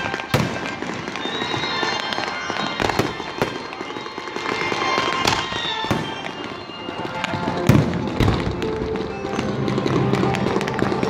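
Fireworks display: aerial shells bursting in an irregular string of sharp bangs, about a dozen, over background music.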